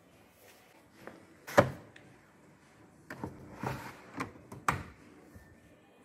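A sharp knock about one and a half seconds in, then a run of smaller knocks and clicks.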